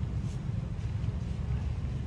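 Steady low outdoor rumble with a few faint soft ticks; no monkey calls.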